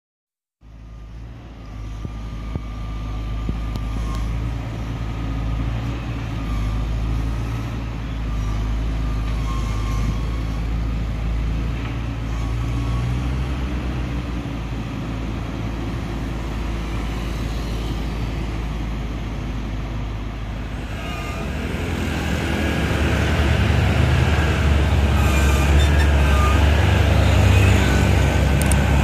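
Diesel engines of a Xiniu XN90Y wheeled excavator and a dump truck running steadily, growing louder about two-thirds of the way in, with scattered knocks near the end.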